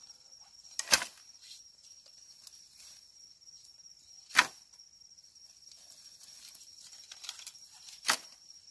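Cut wooden branches and sticks tossed onto a pile on the ground, landing with three sharp knocks a few seconds apart.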